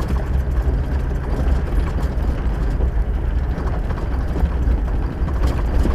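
Vehicle driving over a rough dirt road: a steady low engine and tyre rumble with continuous irregular rattling and jostling.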